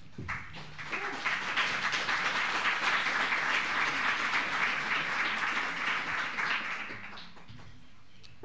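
Audience applauding: many hands clapping together, building within the first second and dying away about seven seconds in.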